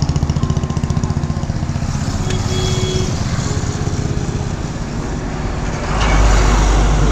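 A motor vehicle's engine running with a steady pulsing beat that eases over the first few seconds, then a louder low rumble swells in about six seconds in.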